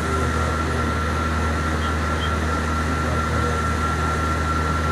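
A steady hum and hiss with a thin, constant high tone above it, unchanging throughout, like a fan, generator or amplifier running.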